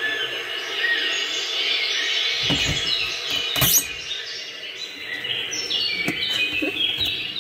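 Birdsong chirping, most likely a recording played by a display window's sound demo, with a few knocks from the window unit being handled about halfway through.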